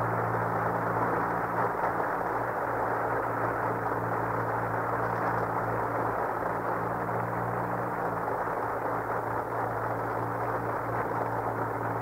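Steady hiss with a low electrical hum from an old radio broadcast recording, with no music or voice over it: the recording's background noise between program segments.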